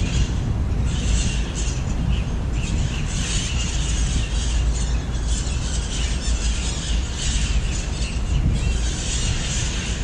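Parrots squawking and chattering as a flock, a dense, continuous high-pitched clamour that thins briefly a few times, over a steady low rumble.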